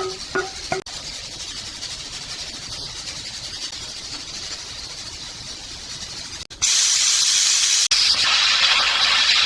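Garlic fried rice sizzling in a pan with butter: a steady frying hiss that jumps much louder about six and a half seconds in.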